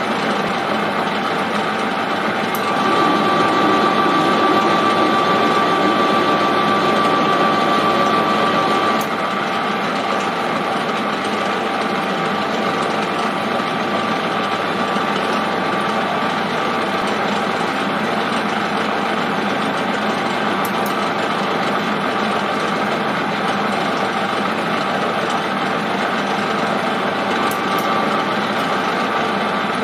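Manual metal lathe running steadily, its spindle and gear train whining while a left-hand thread is single-point cut on a turned spindle. A louder stretch lasts about six seconds, from a few seconds in.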